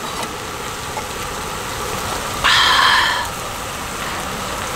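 Marinated pork galbi sizzling steadily in a pan over a camping burner. A louder sound of just under a second stands out about halfway through.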